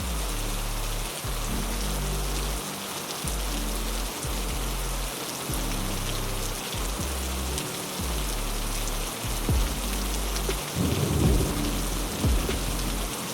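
Heavy, steady rain hissing, with a low rumble of thunder swelling about eleven seconds in. Soft, low held musical notes run underneath.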